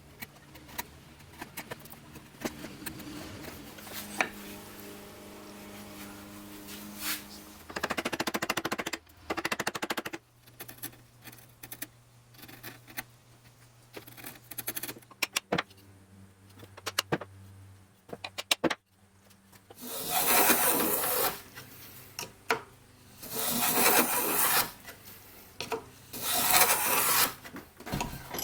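Hand woodworking on wood: scattered knocks and clicks, and rasping strokes of a tool cutting or scraping wood, with three longer rasping strokes near the end over a low steady hum.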